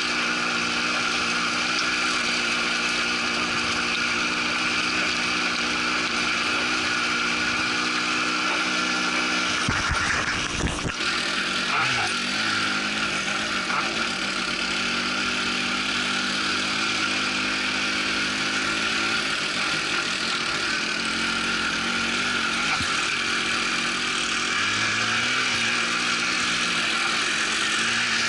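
Quad bike engine running steadily while riding over a rough track, with a couple of knocks about ten seconds in as the bike jolts.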